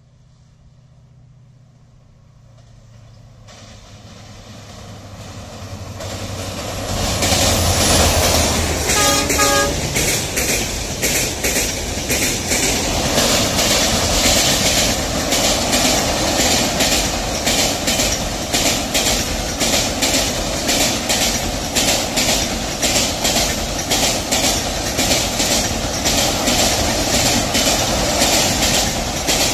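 Diesel-hauled passenger train approaching and crossing a steel girder bridge: a low engine rumble grows louder over the first several seconds, with a short horn blast about a third of the way in. Then the passenger coaches pass close by, their wheels clattering rapidly and steadily over the bridge rail joints.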